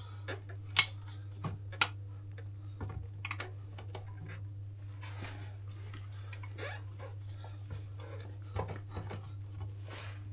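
Metal tools and small motorbike parts being handled, with scattered clinks and clicks, two sharp ones in the first two seconds, over a steady low hum.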